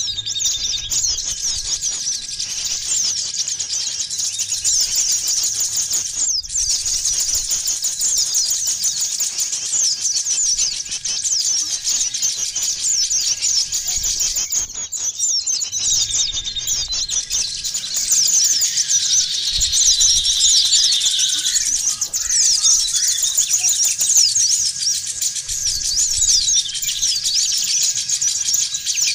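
Dense chorus of many small birds chirping and twittering continuously, a thick overlapping mass of quick high-pitched calls.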